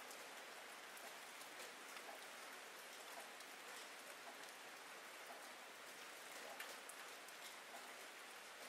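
Faint, steady rain falling: an even hiss dotted with many small drop ticks.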